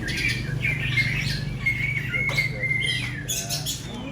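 Several caged songbirds singing and chattering over one another in quick chirps, trills and whistles, over a low steady hum.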